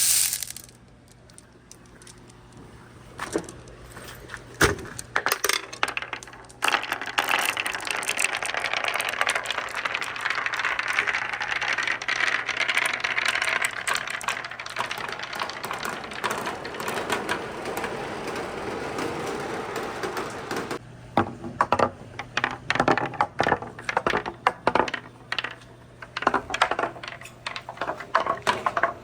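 Marbles rolling and clacking along a wooden marble run. Through the middle there is a steady rush of water flowing down the course, and near the end there are rapid, dense clicks of marbles striking the wooden track.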